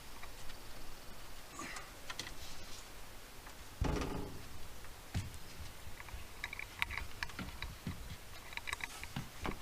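Scattered light clicks and taps of hand work on a screen door's hinge and screw hardware, with one heavier thump about four seconds in.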